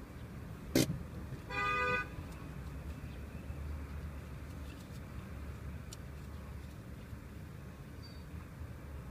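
Street traffic with a steady low rumble; a sharp click just under a second in, then a short car horn toot lasting about half a second.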